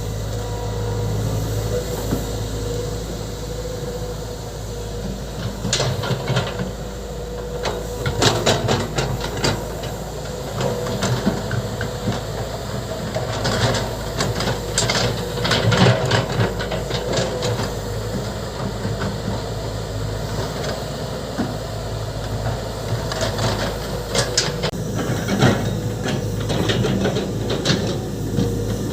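Volvo EC200D excavator's diesel engine running steadily, with bursts of clanking and knocking from the working machine at several points, most around the middle and again near the end.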